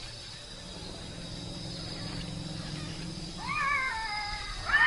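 Newborn elephant calf squealing twice, short high calls that rise and fall in pitch, the second louder; faint insects trill steadily behind.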